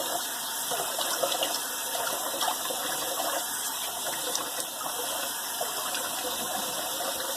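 Tap water running into a sink while a face is splashed and rinsed with cold water, a steady rush that stops abruptly near the end.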